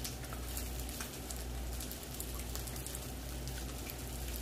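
Pork belly frying faintly on a grill pan: a soft hiss with scattered small crackles, over a steady low hum.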